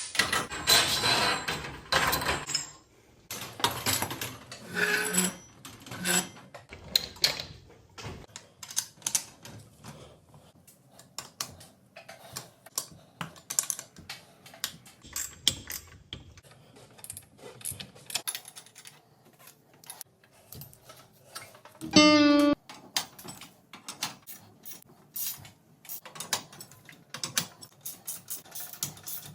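Irregular metallic clicks and clanks of hand tools at work on a garage door torsion spring assembly, with a short rising whine about two-thirds of the way through.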